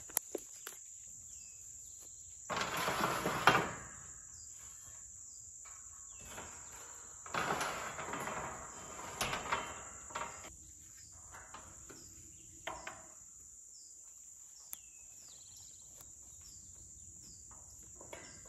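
Steady high-pitched chorus of insects in the field. Over it come two stretches of rustling and handling noise, one about two and a half seconds in with a sharp knock at its end, the other from about seven to ten seconds in.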